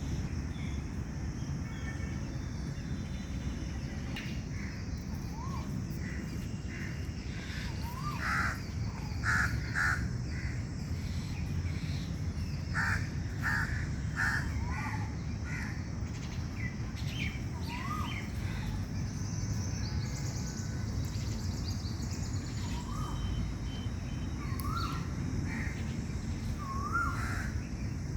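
Wild birds calling: clusters of harsh calls in the first half, and a short rising note repeated every few seconds, over a steady low rumble of background noise.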